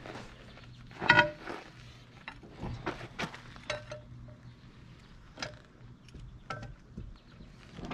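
Scattered metallic clinks and knocks of steel tools and wheel hardware being handled on a tractor wheel hub, several of them ringing briefly.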